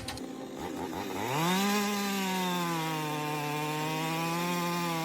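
A power tool's motor spinning up about a second in, then running at a steady high speed with a hissing cutting noise over it.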